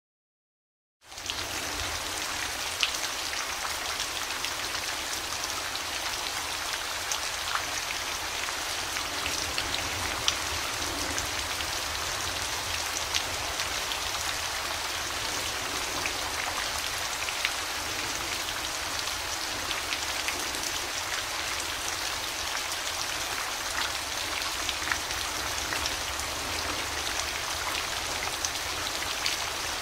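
Steady falling rain starting about a second in: an even hiss with scattered sharp ticks of individual drops hitting a surface.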